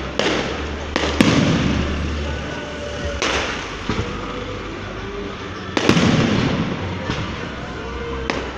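Aerial fireworks exploding overhead: a run of sharp bangs, about six of them, the loudest about a second in and near six seconds, each trailing off into crackling.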